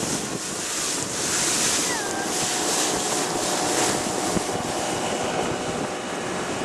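Wind buffeting the microphone and water rushing past the hull of a moving motorboat, with a faint steady engine drone underneath.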